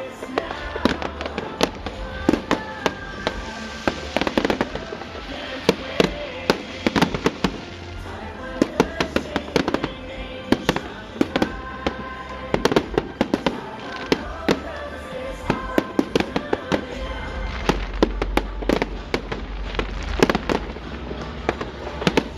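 Fireworks going off in rapid, irregular bangs and crackles throughout, over music playing behind them.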